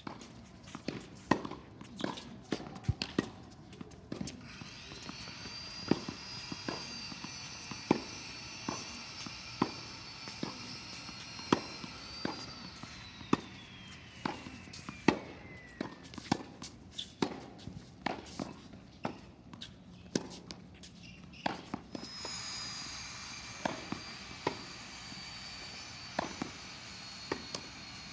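Tennis rally on a hard court: sharp pops of the ball struck by rackets and bouncing, roughly one a second. A high whine runs behind them for much of the time, falling in pitch around the middle and dropping out for a few seconds.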